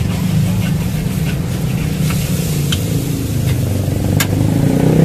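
Kwetiau noodles stir-fried in a metal wok: a steady low roar, with a few sharp clinks of the metal spatula striking and scraping the wok. A motor-like drone rises in pitch near the end.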